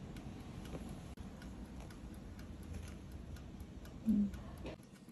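Faint, steady mechanical ticking. About four seconds in there is a short, low voiced hum.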